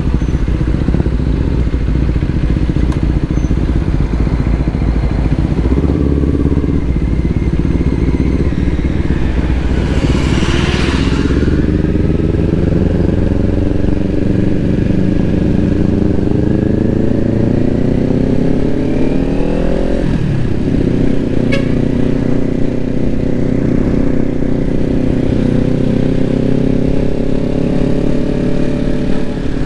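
Kawasaki Ninja 400's parallel-twin engine heard from on the bike while riding. It runs low for the first third, then pulls with its pitch rising steadily for several seconds, drops sharply at a gear change about two-thirds in, and runs steady after that.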